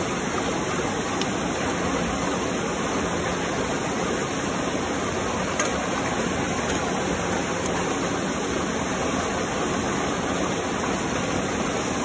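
Steady, unbroken rush of flowing water, with one faint click about halfway through.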